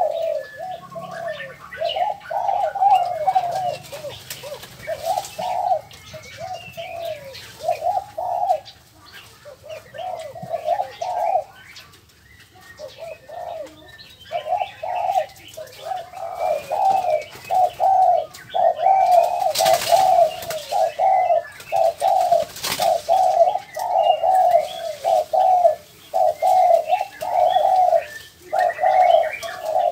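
Doves cooing over and over in a near-unbroken run of short coos with brief pauses, while small birds chirp faintly above them. Two short sharp noises come about two-thirds of the way in.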